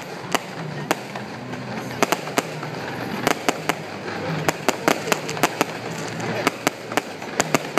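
Aerial fireworks bursting overhead in an irregular string of sharp cracks and bangs, several coming in quick clusters, over a steady background murmur of voices.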